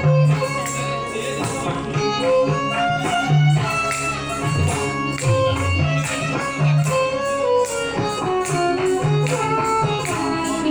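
Odissi classical dance music: a plucked string instrument playing a melody note by note over a regular percussion beat.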